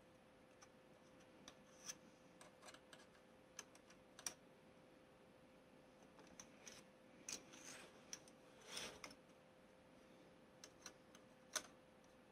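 Faint, irregular clicks and taps of hands handling a plastic model-kit frame while pressing small bulbs into their holders, with a short rustle about nine seconds in.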